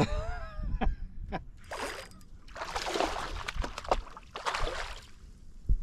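Water splashing and sloshing in three short bursts, with a few clicks before them and a sharp knock near the end.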